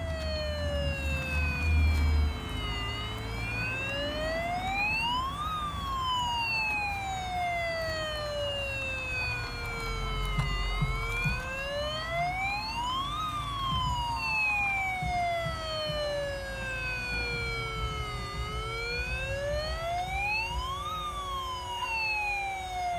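Bubble-blowing toy fire truck's electronic siren wailing: a slow falling tone, then a quicker rise, repeating about every seven to eight seconds. A low rumble sounds in the first couple of seconds.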